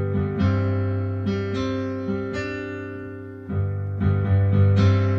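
Solo piano playing an instrumental interlude: chords struck every second or so and left to ring and fade, with a fresh attack about three and a half seconds in.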